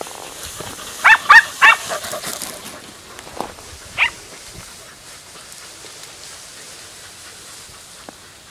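Podenco Andaluz hounds yelping: three quick, loud, high-pitched yelps about a second in, then two fainter single yelps a couple of seconds later.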